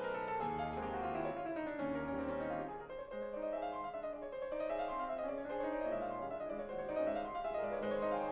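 Background music: piano-like keyboard playing flowing runs of notes that rise and fall, over a steady bass line.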